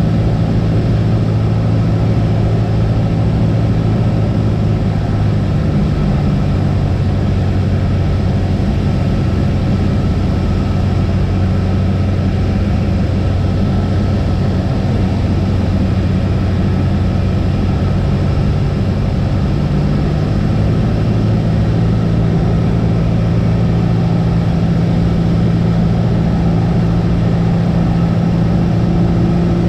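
Cessna 172 piston engine and propeller running as a steady drone, its pitch shifting slightly a few times.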